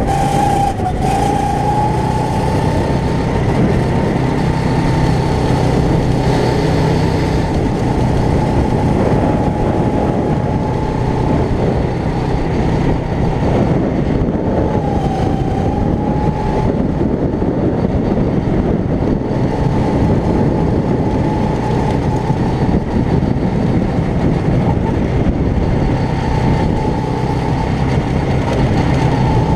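Go-kart's small engine running at speed, heard from on board; its steady high pitch dips briefly about a second in and again about halfway through.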